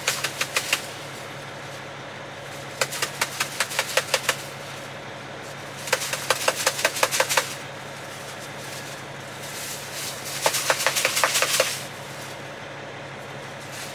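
Four short bursts of rapid clicking, each lasting one to two seconds, from something handled at close range. Under them runs the steady low hum of an idling truck engine.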